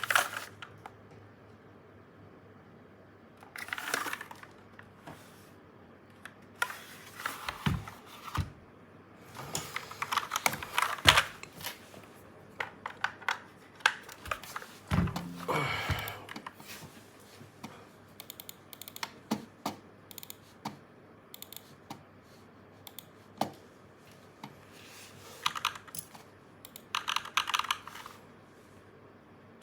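Akko 3108 mechanical keyboard being typed on in bursts of rapid key clicks separated by short pauses, with a heavier thump about halfway through.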